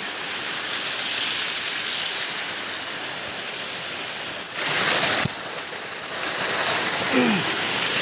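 Small waterfall splashing down over rocks: a steady rush of falling water, briefly louder about halfway through.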